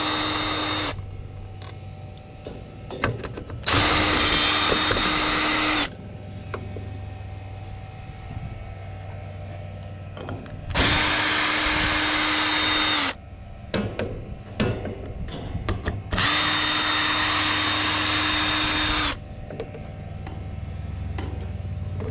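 Craftsman cordless drill running at a steady speed, backing out the screws that hold a refrigerator's condenser coil. It runs in bursts of two to three seconds: one ends about a second in and three more follow, with clicks and taps between them.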